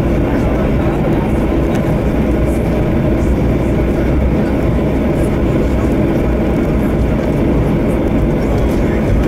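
Cabin noise inside an Airbus A321 over the wing: its CFM56 jet engines and the airframe make a steady low rumble as the aircraft rolls along the ground.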